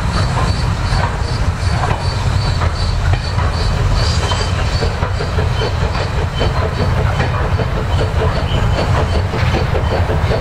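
Industrial steam locomotive hauling a coal train away along the line: a steady rumble with a regular clicking beat from the wheels and exhaust.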